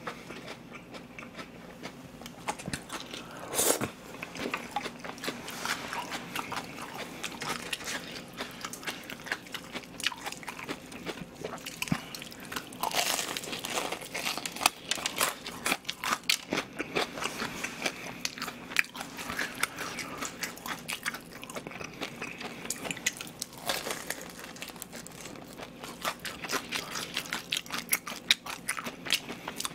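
Close-miked eating of crispy fried chicken: irregular crunching bites and chewing of the fried batter crust, with one sharper, louder crunch about four seconds in.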